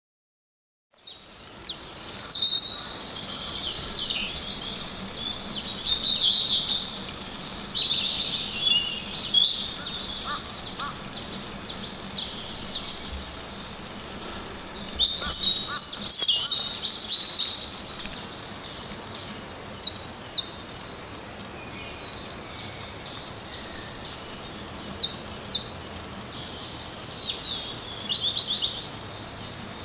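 Several wild birds singing together, a busy chorus of rapid high chirps and trills that starts about a second in, over a faint steady background hiss.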